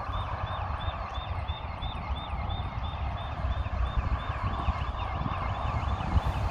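Birds chirping over and over, several short calls a second, over a steady low rumble.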